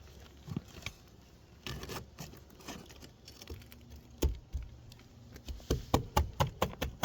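Hand tool working under asphalt roof shingles to break their seal: scattered clicks and taps, a louder knock about four seconds in, then a quick run of sharp clicks near the end.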